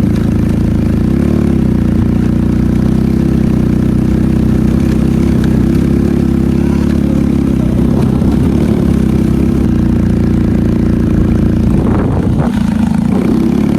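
Benelli motorcycle engine running steadily through its stock exhaust, with an even, unchanging note.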